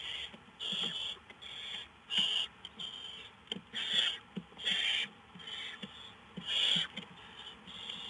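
Downy barn owl chicks giving their rasping, hissing begging calls, short bursts of hiss repeating roughly once a second, some louder and some fainter.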